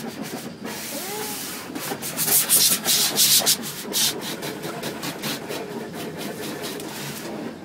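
Automatic car wash brushes scrubbing over the car's body, heard from inside the cabin: a rapid, pulsing rubbing and swishing, louder for a stretch about two to three and a half seconds in.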